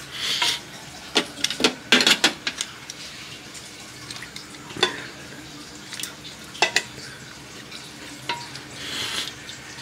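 Kitchen tongs knocking against a metal cooking pot while turning chicken pieces in broth: irregular sharp clacks, several in quick succession about two seconds in, with brief liquid swishes near the start and the end.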